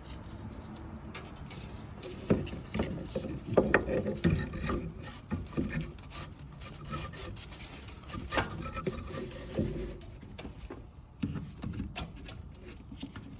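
Parts and tools being handled while the top cover goes back on a steering box: irregular clicks, knocks and scraping, busiest in two stretches with a quieter spell near the end.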